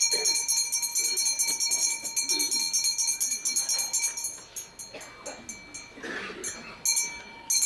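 Sanctus bells, a cluster of small altar bells, shaken rapidly in a continuous jingling peal to mark the elevation of the consecrated chalice. The peal thins out about four and a half seconds in, with a couple of short shakes near the end.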